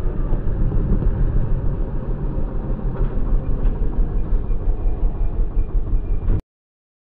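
Bajaj Dominar 400's single-cylinder engine running under way, heard from on the bike with road and wind rumble. It cuts off suddenly about six seconds in, leaving silence.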